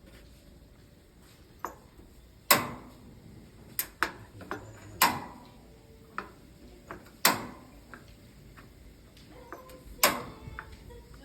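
Sharp metallic clanks at a barbecue grill, six loud ones a second or two apart, each ringing briefly, with a few lighter ticks between them.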